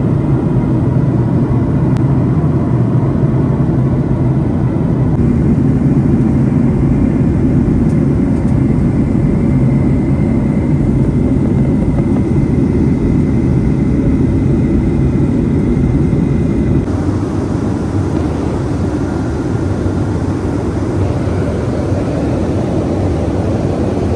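Steady cabin noise of a jet airliner in flight: engine and airflow noise, heaviest in the low end, with a faint high tone that stops about seventeen seconds in, where the level drops slightly.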